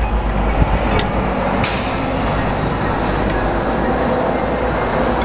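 An engine running steadily with a low hum, and a hiss that starts about one and a half seconds in.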